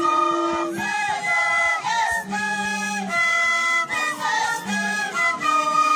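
A group of people singing a carnival song together, in long held notes with short slides between them.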